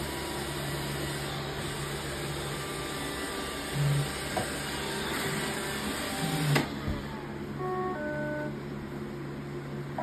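iRobot Roomba robot vacuum running its brush and vacuum motors with a steady whir and low hum. About six and a half seconds in it stops with a click, then plays a short run of electronic beeps.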